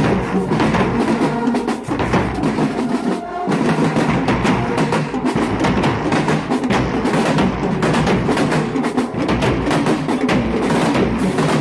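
HBCU marching band playing, with the drumline's marching bass drums and snare drums loud and up front in a steady, fast rhythm. There is a brief dip about three and a half seconds in.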